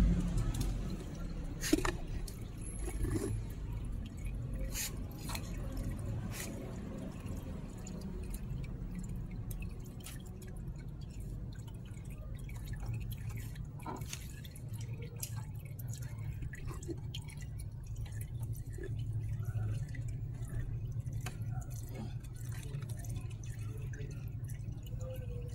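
Old engine oil draining from a four-stroke motorcycle's crankcase drain hole into a cut-open plastic jerry can, with scattered drips and splats. A steady low hum runs underneath.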